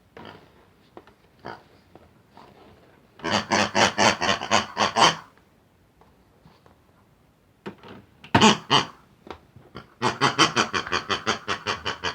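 Pig grunting and oinking in three bouts of rapid, pulsing snorts, about five or six a second: the first about three seconds in, a short one near the middle, and the last running up to the end.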